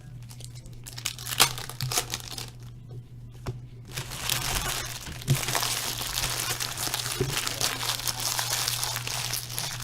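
Foil trading-card pack wrappers crinkling as packs are torn open and handled. There are a few sharp crackles in the first seconds, then dense, continuous crinkling from about four seconds in.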